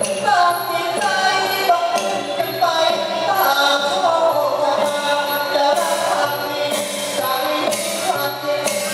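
Thai-style singing: a voice holds a gliding, ornamented melody over instrumental accompaniment with light percussion strikes.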